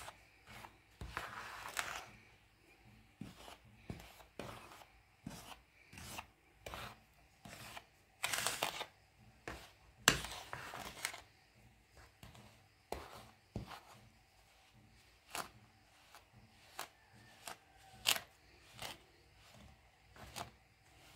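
Metal spoon stirring and scraping a dry mix of flour, sugar and ghee in a plastic bowl: irregular soft scrapes and light taps, with a few longer scraping strokes.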